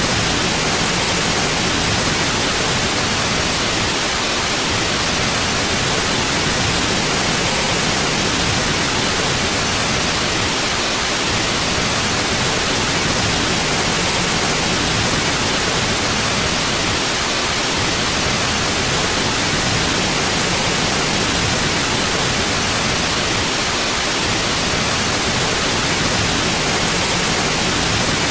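Steady white noise: an even, unchanging hiss with no variation or events.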